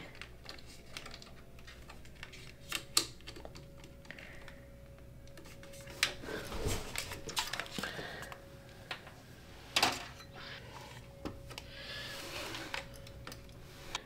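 Hands working inside an open desktop PC case while freeing the all-in-one liquid CPU cooler and its cables: scattered clicks and taps of parts and connectors being handled, the sharpest about ten seconds in.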